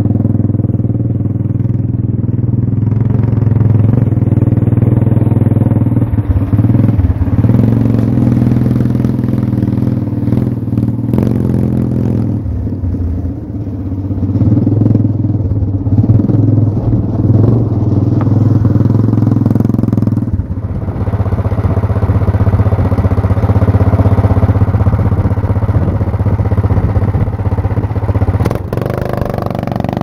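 Tillotson 212cc single-cylinder go-kart engine running through a 3 ft straight-pipe header with no muffler, loud and bassy, its note rising and falling as the kart is driven around, easing off briefly twice.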